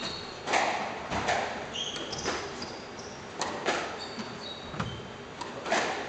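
Squash ball being hit during a warm-up: several sharp racket strikes and ball smacks off the walls, echoing in the court. Short high squeaks of court shoes on the wooden floor come between them.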